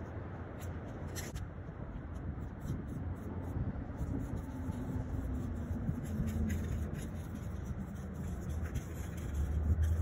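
Aerosol spray paint can hissing in short bursts as paint is sprayed onto a wall, over a steady low rumble of city traffic.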